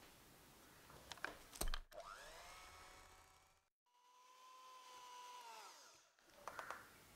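Electric hand mixer with its beaters in a glass bowl of cake batter. A few clicks come first, then the motor whines for about two seconds. After a short break it runs again with a steady whine for about two seconds, winds down, and a few more clicks follow.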